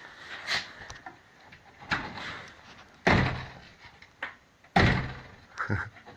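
A Honda Step Wagon minivan's door being worked, with two loud bangs about a second and a half apart and a few lighter clicks and clunks around them.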